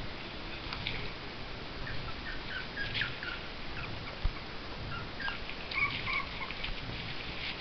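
Two schnauzers play-wrestling, giving short high whines and yips in two clusters, with a single knock about four seconds in.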